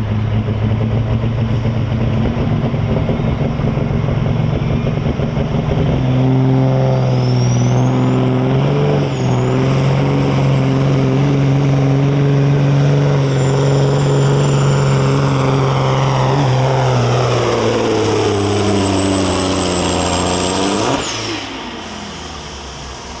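Kenworth pro street semi's diesel engine running hard under load as it pulls a sled, a loud deep drone with a thin high whistle over it. The pitch steps up about six seconds in, then falls away as the engine winds down near the end.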